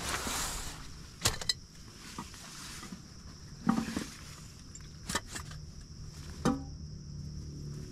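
A backpack and a pouch being handled and unpacked: a rustle at the start, then several sharp clicks and knocks of gear and fittings spread through.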